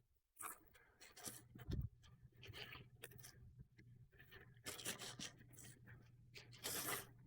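A package being torn open by hand: irregular tearing, rustling and scraping of packaging, with the loudest rips near the end and a soft thump about two seconds in.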